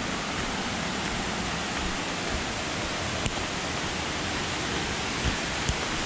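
Steady rush of a waterfall pouring onto rocks, with a few faint clicks over it.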